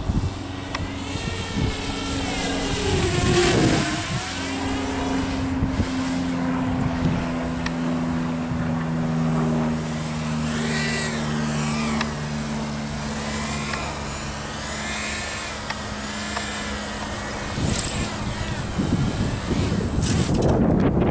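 Walkera F210 FPV racing quadcopter in flight: its brushless motors and propellers whine, the pitch rising and falling again and again with the throttle. Near the end, wind rumbles on the microphone.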